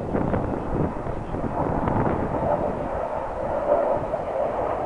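Su-27 fighter jet's twin AL-31F turbofan engines heard in flight overhead: a steady rushing jet noise that swells a little in the middle as the aircraft passes.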